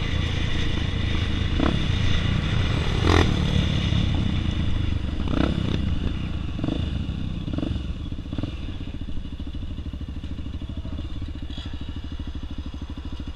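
Dirt-bike engine running, louder at first with several knocks and clatter, then dropping about halfway through to a steady idle with even firing pulses.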